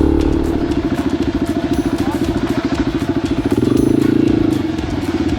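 Yamaha XT250's single-cylinder four-stroke engine running at low revs with a fast, even chugging beat. It picks up and gets louder for about a second, around three and a half seconds in, then settles back.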